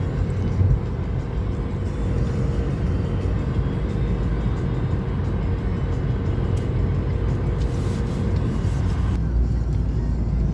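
Steady road and engine noise heard from inside a moving car, with music playing along with it.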